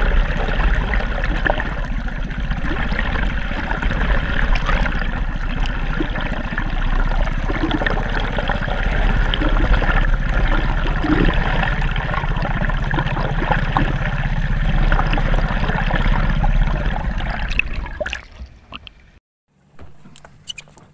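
Water rushing and gurgling past an underwater camera moving through the sea, with a steady low rumble beneath it. It fades and cuts off near the end, leaving a faint hum.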